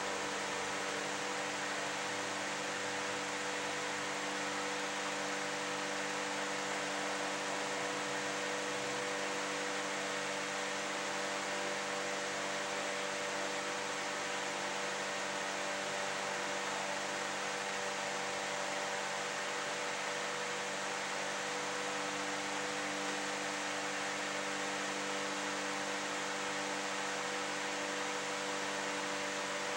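Steady hiss with a constant electrical hum and no distinct events: the room tone of a still, dark room.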